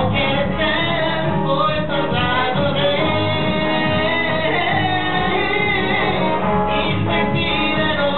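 A man singing live into a microphone to his own electric guitar, holding long notes that bend in pitch over a steady accompaniment.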